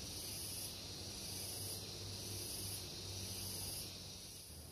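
Forest insects buzzing in a steady high chorus, with a higher buzz pulsing on and off about once a second, four times, before it drops away near the end.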